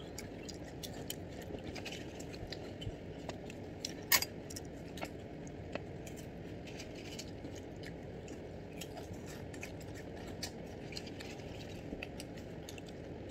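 Eating sounds close to the microphone: scattered small clicks and crunches of chewing, and of a spoon touching a stainless steel food tray, with one sharper clink about four seconds in.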